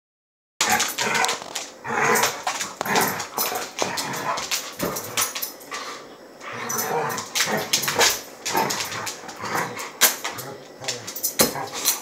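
Two dogs play-fighting, with whining, barks and other dog noises coming in quick, irregular bursts, mixed with sharp clicks and scuffles of paws on a hard floor. The sound starts about half a second in.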